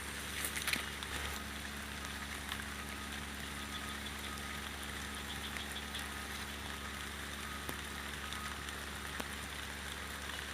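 Steady rain falling, with a few sharp clicks and knocks about half a second in.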